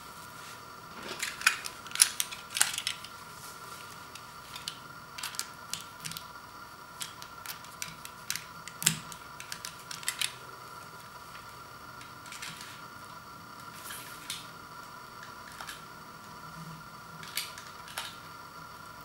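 A shrink-wrapped vinyl LP jacket being handled and its plastic wrap cut with a utility knife: scattered sharp clicks and crackles of plastic, the loudest cluster about one and a half to three seconds in.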